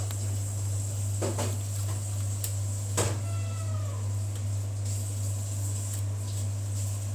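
Steady low hum throughout, with a few light handling clicks and one sharper clink about three seconds in that rings briefly.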